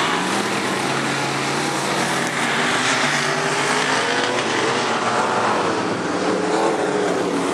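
A pack of dirt-track race cars running on the oval, several engines heard at once, their pitches rising and falling as the cars pass.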